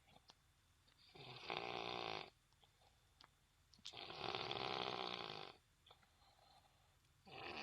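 Snoring in slow, even breaths: two long snores, each about a second and a half, about three seconds apart, with quiet between them. A third snore begins right at the end.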